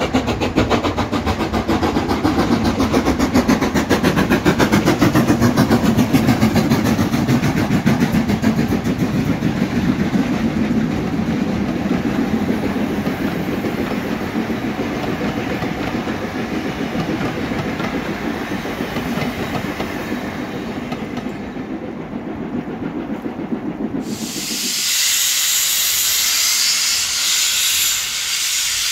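A steam train passing with a rhythmic rumble and clatter of wheels that slowly fades as the coaches go by. About 24 seconds in it gives way abruptly to a loud steady hiss of steam venting from a tank steam locomotive's cylinder drain cocks as it stands at a platform.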